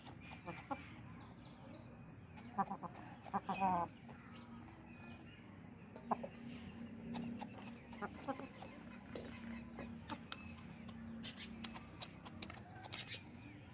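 Aseel chickens clucking in short bursts as they feed, with sharp ticks of beaks pecking grain from a steel bowl. A low steady hum runs underneath through the middle of the stretch.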